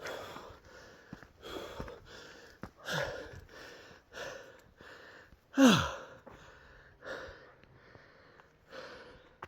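A man panting hard from climbing steep steps, a breath roughly every three-quarters of a second. Two louder groaning sighs fall in pitch, about 3 seconds in and, loudest, a little past halfway.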